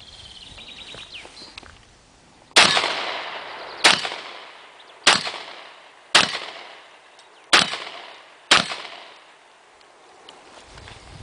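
Six shots from a Benelli M3 shotgun, fired in a quick string roughly a second apart starting a couple of seconds in, each a sharp blast with a short ringing tail.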